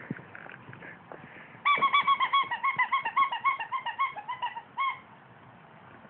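Rubber chicken squeak toy squeezed over and over, a fast run of short honking squeaks at about six a second, starting about a second and a half in and lasting about three seconds.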